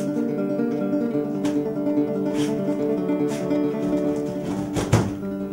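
Acoustic guitar music in a flamenco style, with sustained chords and a few sharp strums. A short, loud knock about five seconds in.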